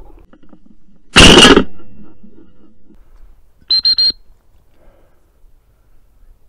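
A single shotgun shot about a second in, loud and sharp, with a brief echo. About two and a half seconds later come three short, high, steady-pitched toots in quick succession.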